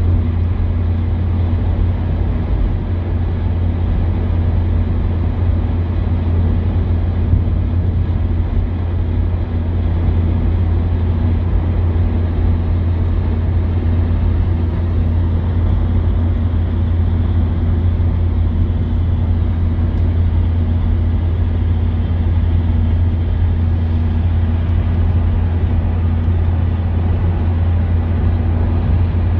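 Steady road and engine noise heard from inside a moving vehicle, a continuous low drone with tyre hiss that holds an even level throughout.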